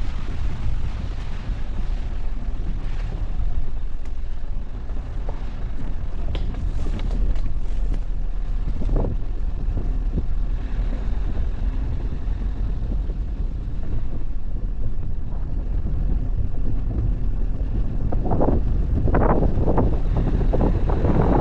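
Dacia Duster being driven off-road: a steady low rumble of engine and tyres with wind buffeting the microphone. Scattered knocks run throughout, and a quick series of them comes near the end.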